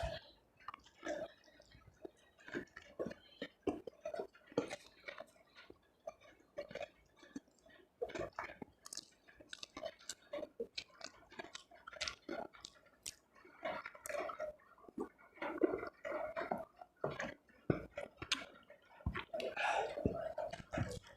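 Close-miked chewing and eating, a string of irregular wet mouth smacks and clicks.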